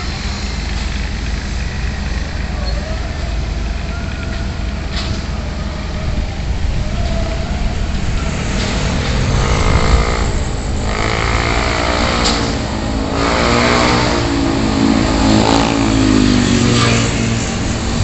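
Steady rumble of diesel construction machinery and road traffic. From about halfway through, vehicle engines rise and fall in pitch as they rev and pass.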